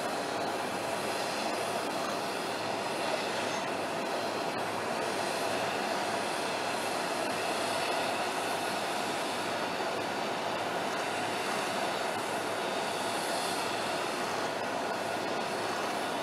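Steady jet aircraft noise from the parked airliner: an even roar with a faint, constant whine through it.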